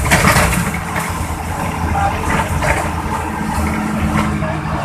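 Intercity bus diesel engine running with a steady low rumble through its exhaust, with a brief rattle at the start.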